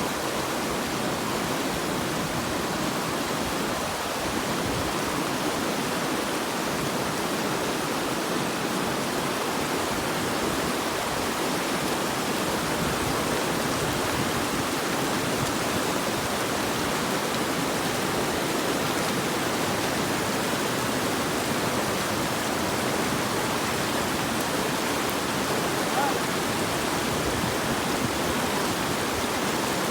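Steady rushing of a stream or river, running water with an even hiss and no change throughout.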